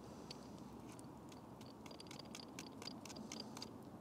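Wood campfire crackling: scattered sharp pops and snaps, thicker in the second half, over a low steady hiss.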